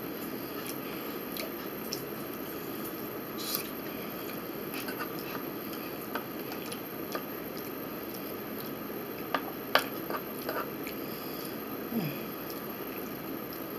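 Close-miked eating: soft chewing of a tuna sandwich with a few scattered sharp clicks, over a steady room hiss. The loudest clicks come a little after halfway, and a brief low falling sound follows near the end.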